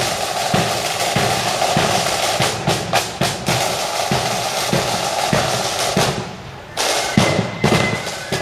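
Marching band drums: snare drums rolling over a bass drum beating a steady marching pulse about every 0.6 seconds. The drumming falls off briefly about six seconds in, then comes back with heavy strikes near seven seconds.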